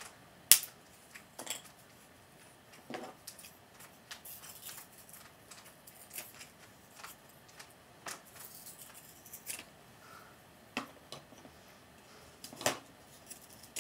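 Scissors cutting small pieces of balsa wood: scattered sharp snips and clicks, the loudest about half a second in, with light handling knocks as the pieces are set on the model's base.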